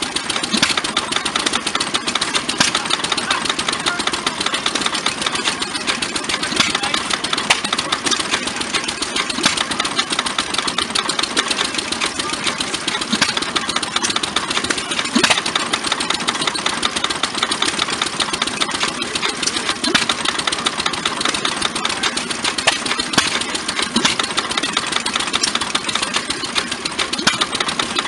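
Antique hit-and-miss gas engines running, a steady dense rapid clatter with a few louder single knocks standing out now and then.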